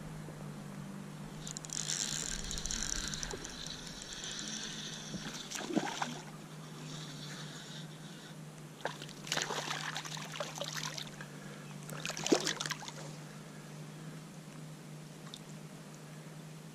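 A fishing reel being cranked for a few seconds, then a hooked smallmouth bass splashing at the surface in three short bursts as it is reeled in and landed.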